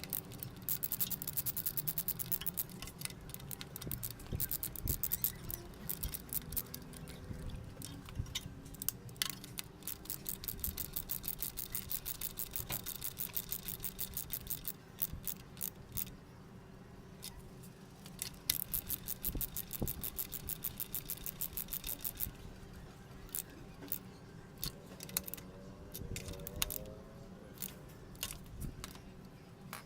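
Socket ratchet clicking in rapid runs as spark plugs are tightened, sped up four times so the clicks blur into fast rattling bursts. The runs thin out to scattered clicks after about twenty seconds.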